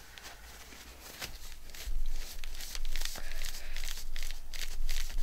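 A cloth towel rustling and rubbing over paper as it presses a freshly glued paper piece down flat. The rubbing starts about two seconds in, after a quieter start.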